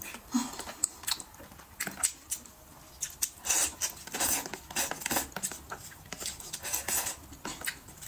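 Wet slurping and chewing of sauce-soaked food in a run of short, uneven bursts. Wooden chopsticks click against a plastic tub.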